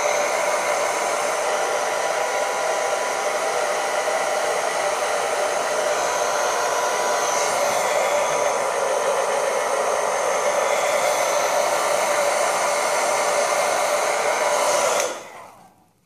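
Handheld hair dryer blowing steadily on low speed with no heat. It is switched off near the end and winds down over about a second.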